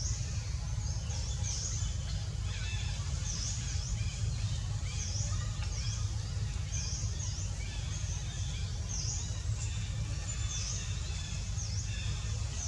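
Outdoor ambience: short high chirping calls repeating about once a second, with fainter calls beneath, over a steady low rumble.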